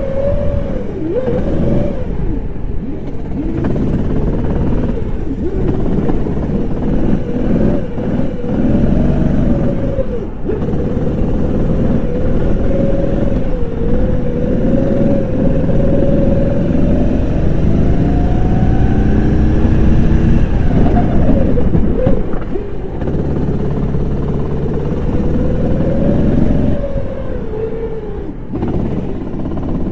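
Go-kart engine heard from on board at racing speed, its note held high with heavy rumble beneath. It drops briefly about four times as the throttle comes off for corners, then climbs again.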